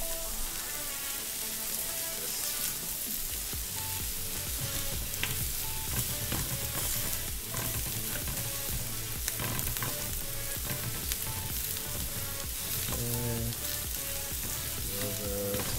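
Brussels sprouts searing in a hot pan, sizzling steadily.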